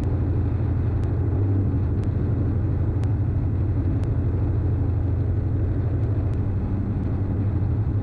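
Steady low drone of a Diamond DA42's twin turbodiesel engines and propellers at approach power, heard inside the cockpit.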